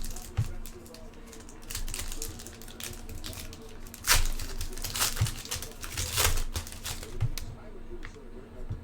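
Trading-card packaging being opened and handled: plastic wrapper crinkling and tearing with cardboard rustling, in irregular bursts, several louder ones around the middle.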